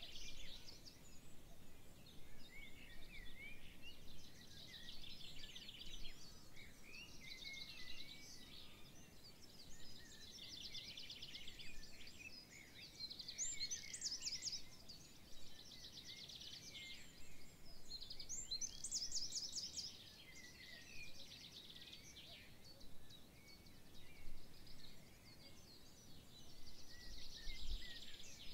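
Several songbirds singing at once, overlapping chirps, warbles and fast trills, over a faint steady background hiss.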